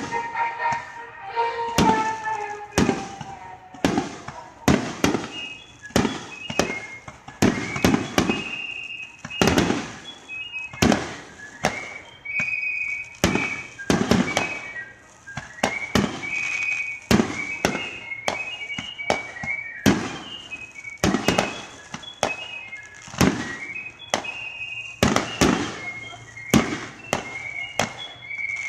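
Aerial firework shells bursting one after another, more than one sharp bang a second, with no pause in the barrage.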